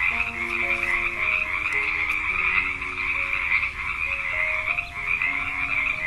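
A dense chorus of frogs croaking, a steady high-pitched trilling that runs without a break.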